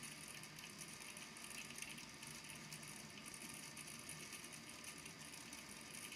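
Small balls in a volcano lamp's water tank tapping on the tank's base as they settle, a faint continuous patter of tiny clicks over a low steady hum.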